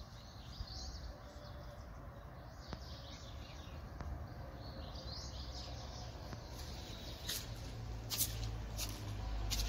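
Small birds chirping in the background in short high calls, with a few sharp clicks in the second half and a low rumble growing near the end.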